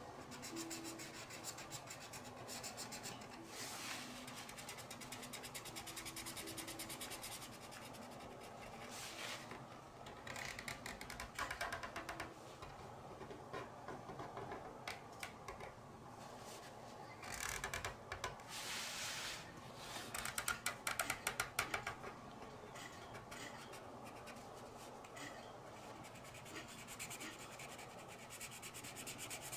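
Felt-tip marker rubbing back and forth on coloring-book paper in quick, faint scratchy strokes as an area is filled in. There is a louder stretch of scratching and rustling a little past halfway.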